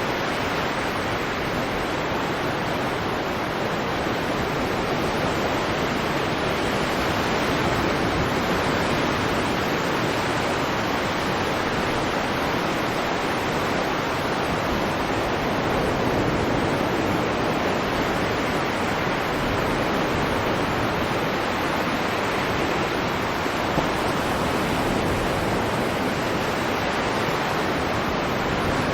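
Stormy sea ambience: heavy surf and wind, a dense steady wash of noise that swells and eases slowly.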